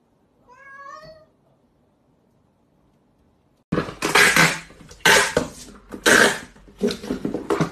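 A domestic cat gives one short meow about half a second in. After a cut a little under four seconds in, a run of loud, sharp clattering knocks comes about once a second.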